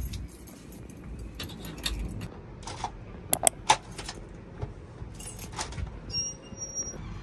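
A bunch of keys jangling, then a key working in the lock of a metal door, with a quick cluster of sharp metallic clicks in the middle. A short high-pitched tone sounds near the end.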